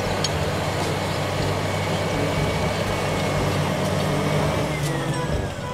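Crawler bulldozer's diesel engine running steadily under load as the blade pushes a pile of dirt.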